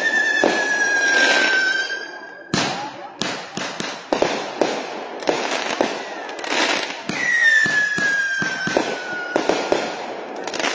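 Consumer-grade aerial repeater fireworks firing: a quick series of launch thumps and bursting bangs. Twice a long whistling tone falls slightly in pitch, across the first two seconds and again from about seven seconds in.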